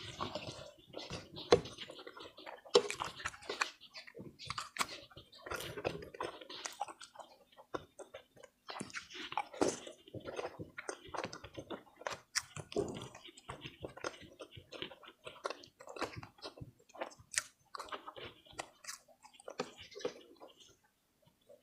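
Close-miked chewing and biting of food, likely ketupat rice cake with opor ayam chicken and sambal goreng kentang potatoes: a dense, irregular run of short mouth sounds.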